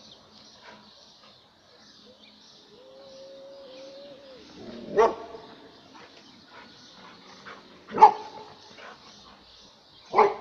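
Airedale terrier barking at cats: three sharp, loud barks a few seconds apart, the middle one loudest. A long, even low cry comes a second or so before the first bark.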